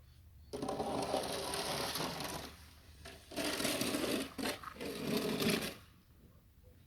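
Two long scraping strokes of snow being cleared, each about two seconds long, a second apart.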